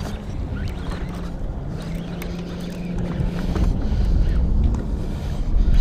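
Wind buffeting the microphone over the steady electric hum of the boat's trolling motor holding position on spot lock. The hum wavers in pitch briefly near the end, and the wind rumble grows louder in the second half.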